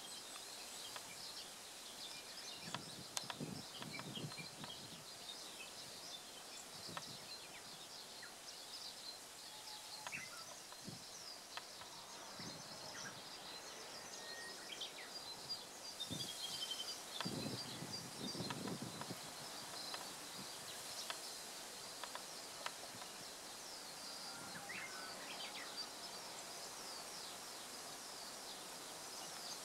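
Faint birdsong: many small birds' short high chirps over a steady background hiss, with a few low soft bumps of wind on the microphone.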